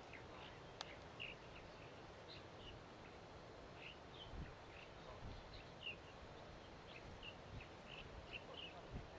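Faint short bird chirps, scattered irregularly, over low outdoor background noise, with a single sharp click about a second in.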